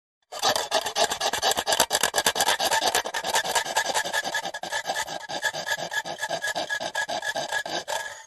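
Handsaw cutting through wood in quick, steady back-and-forth strokes, a rasping sound that cuts off suddenly near the end.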